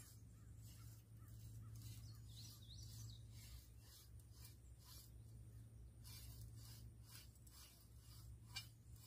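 Near silence: a faint steady low hum, with a faint distant animal call about two and a half seconds in.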